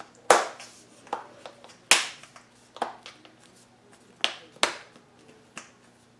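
iPad 1 front glass panel being pressed back into its aluminium rear housing by hand: about seven sharp snaps and clicks over six seconds, spaced unevenly, as the panel's clips seat. The loudest snaps come near the start and about two seconds in.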